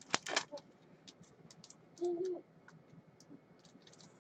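Trading cards being handled, with sharp clicks and rustles at the start and light ticks after. About two seconds in comes a short, low hoot-like call.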